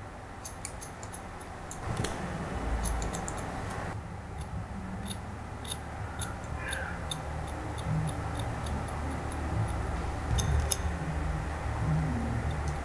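Barber's hair-cutting scissors snipping hair held against a comb: many short, crisp snips in irregular runs, over a low rumble.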